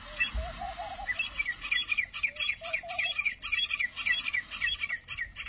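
Birds chirping: a fast run of short high chirps, with two brief lower warbling calls, one near the start and one about halfway through.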